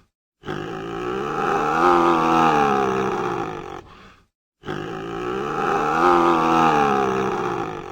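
A large wild animal's long, drawn-out roar, pitched and wavering, heard twice as the same call repeated, each lasting about three and a half seconds with a brief silence between.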